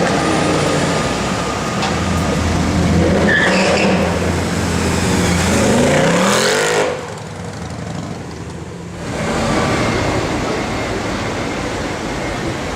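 Mercedes-Benz C63 AMG V8 exhaust under acceleration, its note climbing in pitch about six seconds in, then falling away suddenly for a couple of seconds before engine and traffic sound pick up again.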